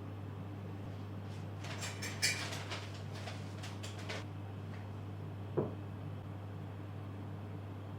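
Light kitchen handling sounds over a steady low hum: a cluster of small clicks and rustles from about two to four seconds in, then a single soft knock near six seconds.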